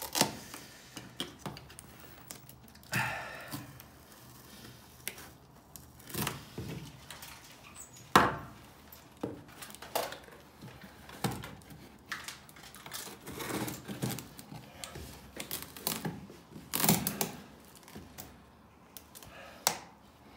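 Handling noises: a cardboard box and tape rustling and tearing, with scattered knocks and clicks.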